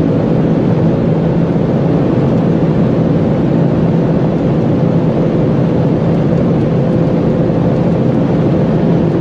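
Audi engine pulling steadily in seventh gear at around 340–350 km/h, heard from inside the cabin under heavy wind and tyre roar. It is a flat, unbroken drone as the car slowly gains speed near its top end.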